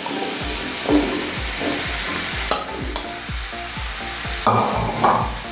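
Hot oil and spice paste sizzling in a kadai as raw pumpkin chunks are tipped in on top of fried fish head and potatoes, with a few louder clatters and scrapes of the metal spatula and falling pieces, two of them close together near the end.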